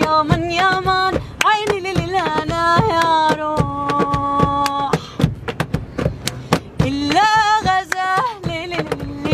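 A woman's voice sings a traditional folk melody unaccompanied, with hand claps and slaps keeping the rhythm. About halfway through she holds a long note and stops, the clapping carries on alone for a couple of seconds, and then the singing comes back in.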